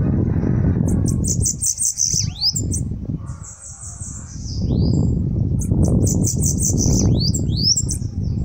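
Bananaquit (sibite) singing: a high, buzzy, rapid trilled phrase with quick swooping notes about a second in and again near seven seconds, with a shorter buzzy note between. Under it runs a loud low rumble.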